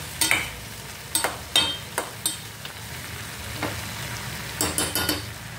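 Sugar syrup bubbling at a steady boil around whole amla in a steel pot. A steel spoon clinks and scrapes against the pot several times in the first two and a half seconds, and again in a quick cluster near the end.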